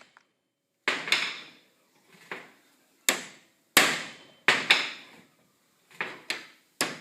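Hammer blows on a Toyota Landcruiser tail shaft's universal joint, about ten sharp strikes, often in quick pairs, each with a short ring, driving a bearing cup out of the yoke.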